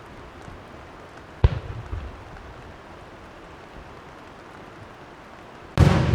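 Aerial fireworks exploding: a single sharp bang about a second and a half in, echoing briefly, then a much louder boom near the end that rumbles on.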